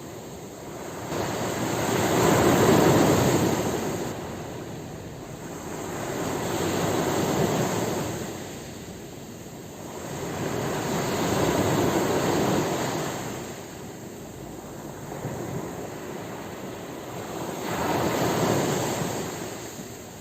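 Ocean waves breaking and washing up the shore: four slow surges of surf noise, each swelling and fading over a few seconds.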